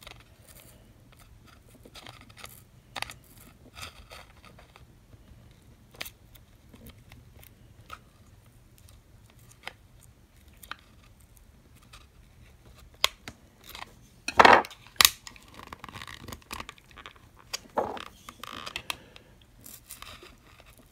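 Thin knife blade working inside the seam of a plastic power bank case, raking through the glue and double-sided tape that hold the battery: scattered small clicks and scrapes, loudest in a short cluster a little past the middle.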